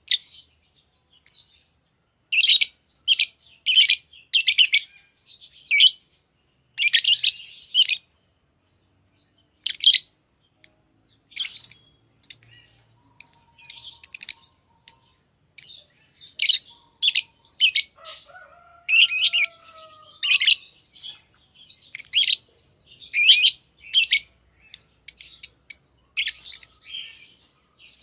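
Lovebirds chirping: short, sharp, high-pitched chirps in quick runs of a few at a time, with pauses of a second or so between runs.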